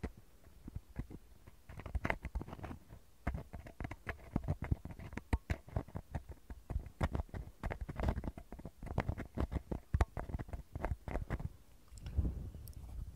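Bamboo ear picks scratching and tapping right at the microphone, an irregular rapid run of scratchy clicks. Near the end a soft, low, fuzzy rustle sets in as a fluffy cotton tuft on a pick brushes it.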